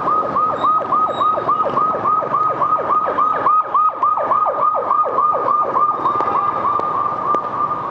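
Emergency-vehicle siren in a fast yelp, about four sweeps a second, each dropping in pitch, over a steady high tone, with street traffic beneath.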